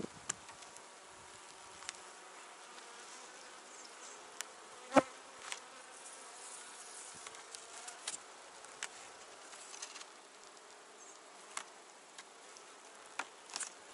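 Honeybee colony buzzing steadily in an open hive, broken by sharp knocks and clicks of wooden frames being set down and pushed together. The loudest knock comes about five seconds in.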